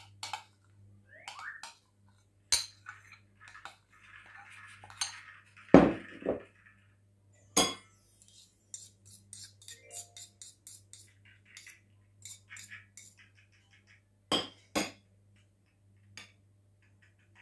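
Metal spoon scraping and clinking against a ceramic bowl as thick sauce is scooped out and spread over grated cheese. A handful of sharp clinks, the loudest about six seconds in, with soft scraping between them.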